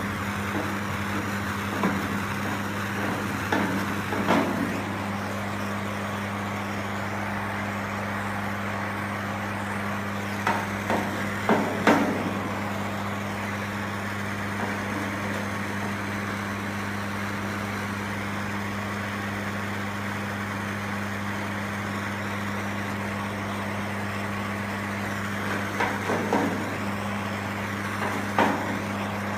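Leading work on a car body seam: a steady hiss over a low hum, with a few light knocks and scrapes from the paddles used to smooth the lead.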